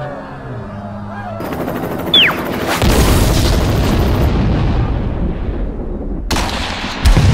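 Edited war sound effects: a short, quick falling whistle, then a long, loud explosion heavy in the low end that cuts off suddenly. A second sharp blast follows about seven seconds in.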